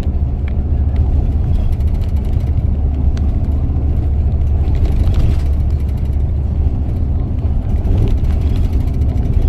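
Steady low rumble of a moving vehicle, heard from inside as it travels along.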